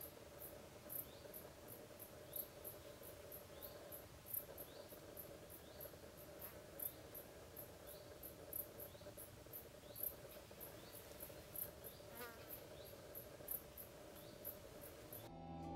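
Faint insect chirping outdoors: a very high, evenly repeated chirp, about three to four a second, over a faint steady hum. Guitar music starts right at the end.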